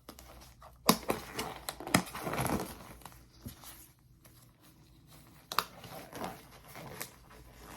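Disposable exam gloves being pulled on: crinkling and rustling, with a few sharp snaps.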